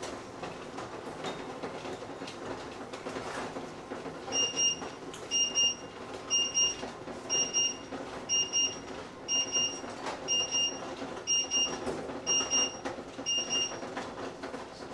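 Microwave oven beeping its end-of-cycle alert: ten double beeps about a second apart, starting a few seconds in, over a steady low hum.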